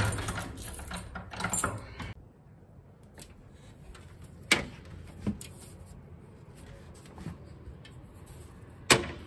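Louvred window shutters being handled and opened: a rustle and clatter at first, then a few sharp clicks and knocks from the shutter hardware.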